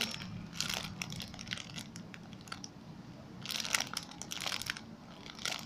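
Crinkling and rustling of packaging being handled, in two bouts: one about half a second in, and a louder one about three and a half seconds in.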